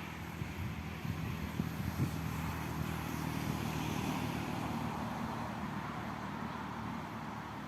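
Steady vehicle noise that swells gently midway and eases off again.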